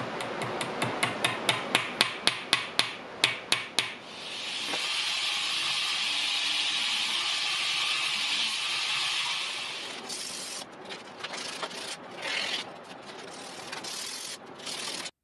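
About a dozen quick, light hammer taps peening a pin over a brass end plate in a vise. Then a belt grinder runs with a steady hiss as metal is held to the belt for about five seconds. Then a cloth strip is pulled back and forth around the knife handle in uneven rubbing strokes, cutting off suddenly at the end.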